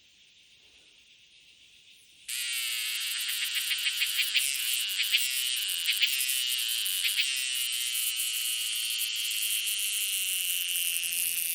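An insect's loud, high-pitched buzzing call, starting suddenly about two seconds in and running on steadily, with a few stretches of quick pulses near its start.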